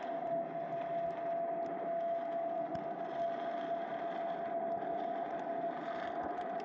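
Underwater ambience picked up by a submerged camera: a steady single-pitched hum over an even hiss, with scattered faint clicks.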